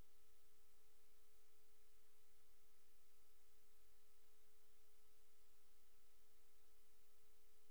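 Faint steady electronic whine: one constant mid-pitched tone with a weaker higher tone above it, over a low hum, unchanging throughout.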